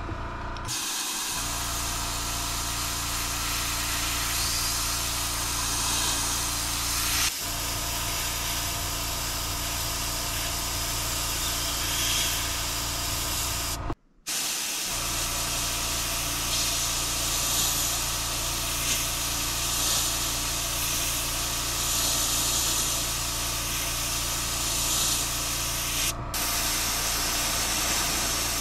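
Airbrush spraying paint, a steady hiss of compressed air over a steady low hum, with a brief gap about halfway through.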